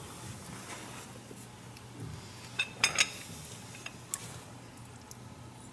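Light metallic clinks and taps from a large four-jaw lathe chuck being hand-turned and its jaws adjusted while a part is dialed in, several clustered about halfway through and a couple more near the end, over a faint steady low hum.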